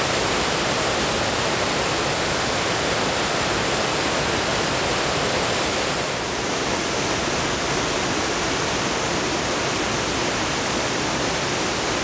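Aira Force waterfall: a steady rush of falling water, dipping slightly in level about six seconds in.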